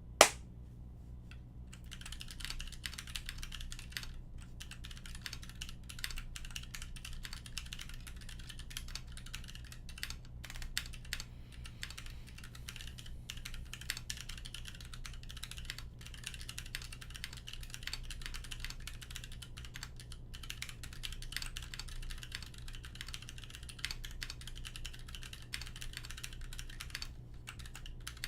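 Continuous fast typing on a custom mechanical keyboard with Kailh Box Royal tactile switches, a polycarbonate plate and GMK ABS keycaps: a dense run of keystroke clacks. It opens with a single sharp click, then the typing starts about two seconds in, over a steady low hum.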